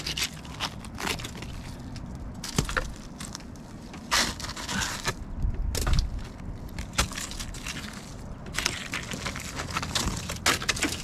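Packed snow and ice in a frozen rain gutter being broken up and dug out by hand, in irregular crunches, cracks and scrapes. The gutter is frozen solid.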